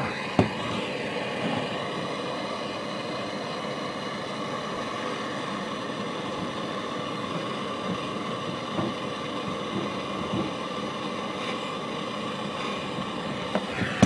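Handheld gas torch flame hissing steadily as it heats a plumbing fitting so the fitting can be pulled off.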